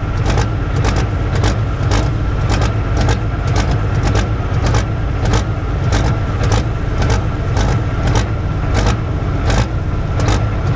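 Pro stock pulling tractor's turbocharged diesel engine idling, with a steady high whine over the low rumble and sharp ticks about twice a second.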